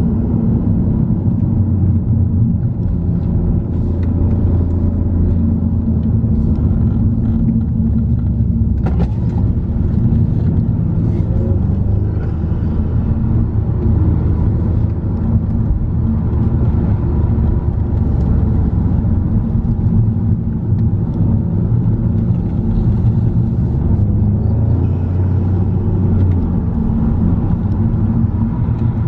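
Car engine and road noise heard from inside a moving car's cabin: a steady low drone whose engine note rises and falls a little.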